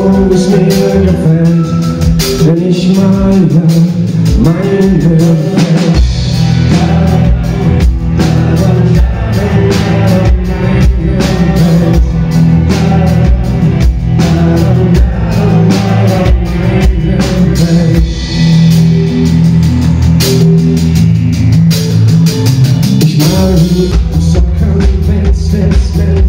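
Live synth-pop band playing with a man singing over drums, guitar and keyboards, heard from the audience. The drums and bass drop away for a few seconds near the start and the full band comes back in about six seconds in.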